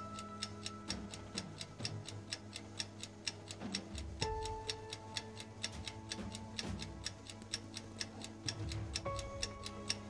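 Quiet background music: a steady ticking beat, about five ticks a second, under held notes that change pitch twice.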